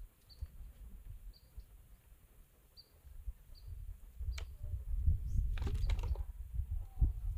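Wind rumbling on the microphone, growing stronger about four seconds in. A sharp click, then a brief scrape of climbing shoes against the rock as the climber moves his feet up. Short high bird chirps every second or so in the first half.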